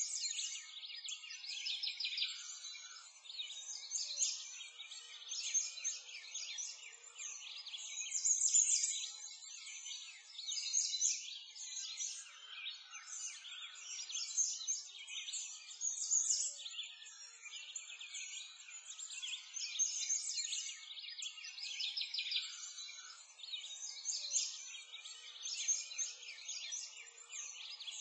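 A dense chorus of small birds chirping and singing, high-pitched and continuous, with no low sounds beneath it.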